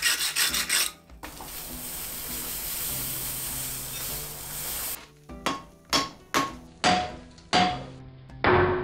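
Stiff wire brush scrubbed quickly across a white-hot Damascus steel billet on the anvil, then a steady sizzling hiss for about four seconds. After that come about seven hand-hammer blows on the billet, each ringing off the anvil, setting the first forge weld by hand.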